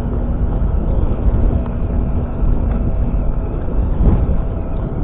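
Low, steady rumble of wind buffeting the microphone on a boat at sea, with a faint steady hum underneath.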